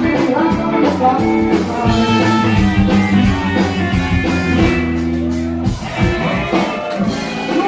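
Live band playing music with electric guitar and a drum kit.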